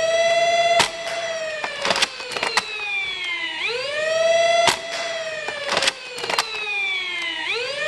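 Electric flywheel motors of a BlasterCore afterburner on a stock Nerf Longstrike, spinning up with a fast rising whine and then slowly winding down, twice. Sharp cracks of the spring blaster firing come about one second in and about five seconds in, with smaller clacks of re-priming in between. The motors run on a 2S battery that the owner says is not up to full power.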